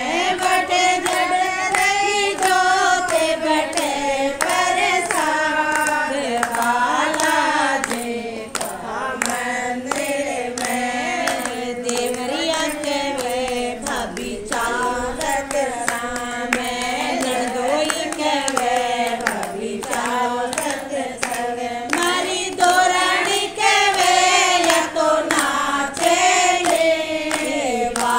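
Voices singing a Hindi devotional bhajan, with steady rhythmic hand clapping keeping time.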